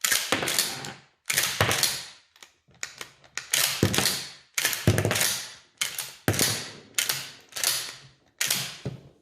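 Dickinson 12-gauge pump shotgun being racked repeatedly, its slide clacking back and forward about a dozen times as it cycles Herters short 2-1/4 inch 00 buck shells through the action. The short shells feed and eject without trouble.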